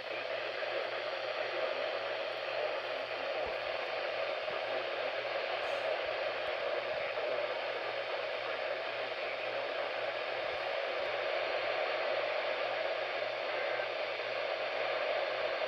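Weather radio receiver giving out steady static hiss with a faint low hum underneath, an open channel with no broadcast coming through.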